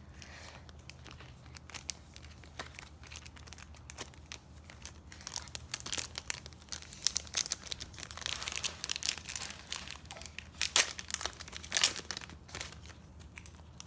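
Foil wrapper of a Match Attax card pack crinkling as it is handled and torn open. It starts with a few faint crackles, then turns into dense crinkling from about five seconds in, with a couple of louder snaps near the end.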